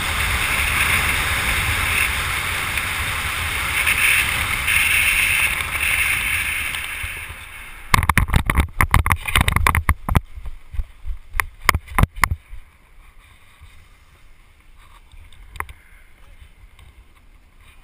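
Wind rushing over a helmet-camera microphone under an open parachute canopy, fading as the jumper slows near the ground. About eight seconds in comes a run of thumps and scuffs for some four seconds as he touches down on grass, followed by a few faint clicks.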